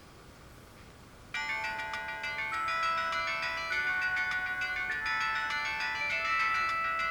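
Sony Ericsson Z200 mobile phone playing one of its built-in ringtones: after a short quiet gap, a melody of several notes at once starts suddenly about a second in and plays on.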